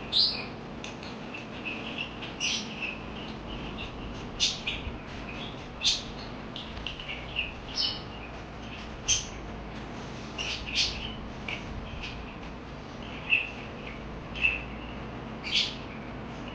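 Parakeets chirping: short, sharp chirps and brief warbles at irregular intervals, a few of them loud, over a steady low background noise.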